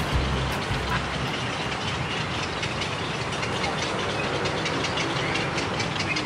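Steady outdoor background noise, with a scatter of faint irregular clicks. The tail of background music fades out about a second in.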